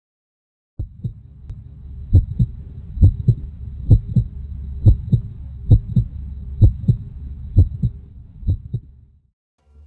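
Heartbeat: a steady lub-dub of double thumps a little under a second apart, over a low hum. It starts about a second in and fades out near the end.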